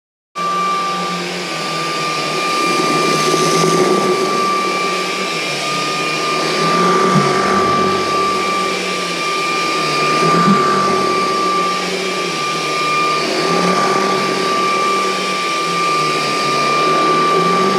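Vacmaster Orson cordless stick vacuum cleaner running: a steady, high motor whine over rushing air. It starts abruptly just after the beginning.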